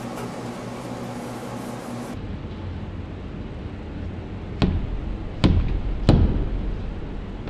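A steady low hum with a hiss that drops away about two seconds in, then three sharp knocks a little under a second apart, the last one the loudest.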